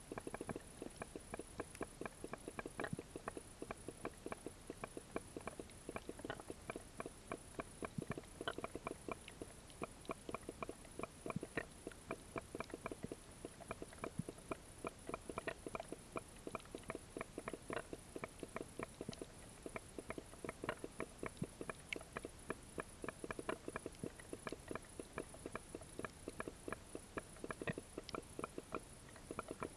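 Underwater crackle of snapping shrimp on a seagrass bed: dense, irregular sharp clicks, many a second, over a faint steady high whine.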